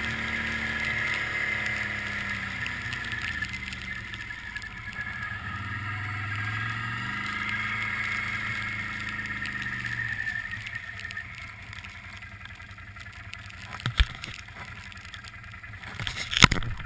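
2009 Can-Am Outlander 800 Max ATV's V-twin engine running under way, rising and falling with the throttle, then easing off to a quieter, lower run about ten seconds in. Two sharp knocks near the end.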